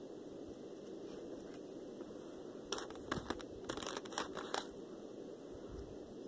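Packaging being handled and opened by hand: a cluster of sharp crinkling and tearing sounds for about two seconds in the middle, over a steady low background hum.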